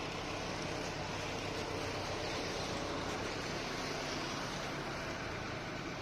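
Tractor engine powering a self-loading pan concrete mixer, running steadily with a constant low hum and machine noise.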